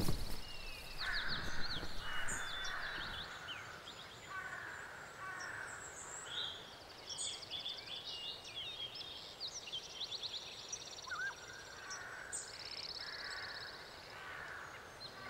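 Woodland birdsong: small songbirds chirping and trilling in quick repeated notes, with crows cawing now and then. A short thump comes right at the start.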